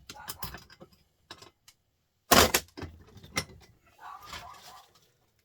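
Metal clicks and knocks of a small printer motor being handled and clamped in a bench vise, with one loud clank about two and a half seconds in and a short scrape near the end.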